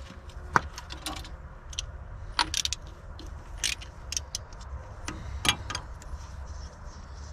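Metal hand tools, a socket and ratchet, clinking and rattling as they are handled, with irregular sharp metallic clicks over a steady low hum.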